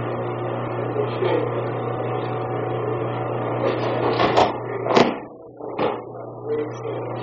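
Aikido throws on a padded training mat: thumps and slaps of bodies landing in breakfalls, three sharp hits about four, five and six seconds in, the middle one the loudest, over a steady low hum.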